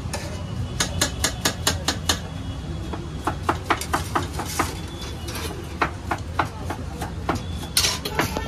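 Quick runs of sharp metallic clinks and taps from a serving spoon or ladle striking steel vessels and plates, coming in three bursts, over a steady low background hum.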